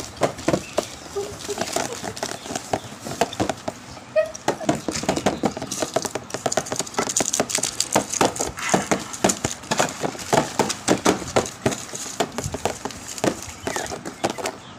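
Paper blind bags and their contents rustling and crinkling as hands open and handle them, a dense run of quick crackles and small taps.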